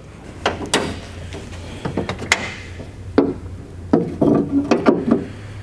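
Metal clicks and clunks as a 2004 Honda Element's hood is unlatched, raised and propped open on its rod. The knocks come one at a time, then bunch together near the end, over a steady low hum.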